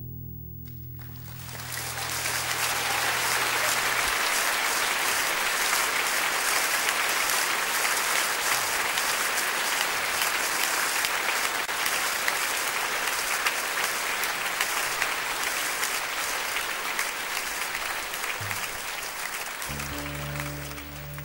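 An acoustic guitar's last chord rings and fades while an audience breaks into applause about a second in. The applause runs on steadily and begins to thin near the end, when the acoustic guitar starts playing again.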